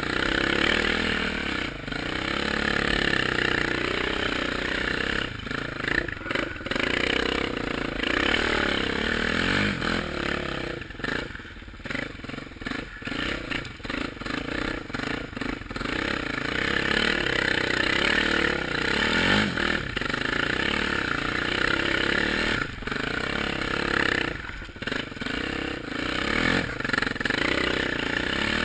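Suzuki LTZ400 quad's single-cylinder four-stroke engine running under way, its revs rising and falling, with a quieter stretch about halfway through.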